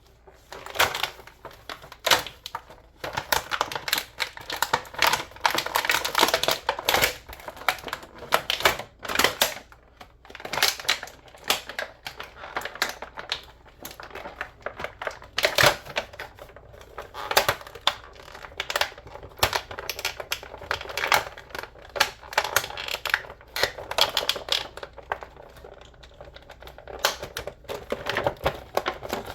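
Action-figure packaging being opened and handled: a steady run of irregular sharp clicks, snaps and crackles.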